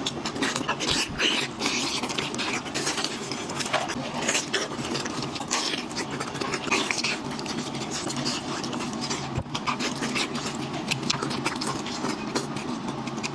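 A person eating close to the microphone: continuous wet chewing and lip-smacking made of many short clicks.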